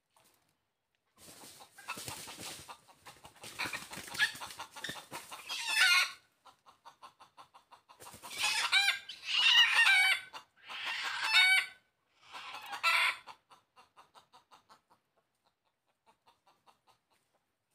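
Chicken calling: runs of rapid clucks around four loud, drawn-out calls of about a second each, with the clucking trailing off near the end. Dry leaf litter crackles underfoot in the first few seconds.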